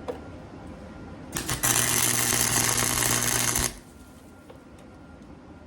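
Electric arc welding: the arc sputters briefly a couple of times, then crackles steadily for about two seconds as a small weld is laid across a steel bracket, and cuts off abruptly, with a low electrical hum under it.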